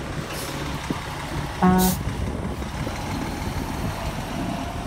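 Vehicle engines running with road traffic, a short hiss of an air brake early on, and one short horn toot about a second and a half in, the loudest sound.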